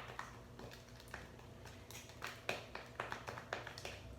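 Slime being stirred with activator in a small container: irregular soft clicks, taps and squelches a few times a second as it thickens.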